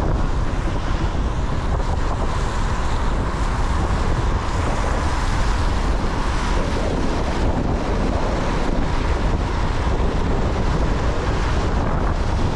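Steady road noise from a car driving on wet pavement: tyres hissing on the wet asphalt over a low rumble of wind on the microphone.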